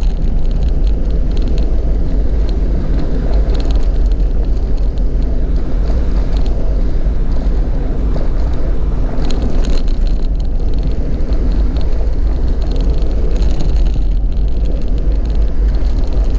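Vehicle driving on a rough unpaved road: a steady low rumble of engine and tyres, with scattered light rattles and clicks.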